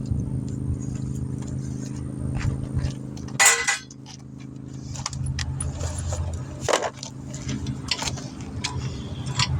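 Metal clinks and clanks of jack and tire-changing tools being handled, with one loud clank about three and a half seconds in, over a vehicle engine idling.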